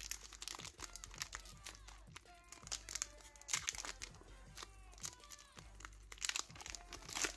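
Foil wrapper of a Pokémon booster pack crinkling and tearing as it is opened by hand, an irregular run of small crackles.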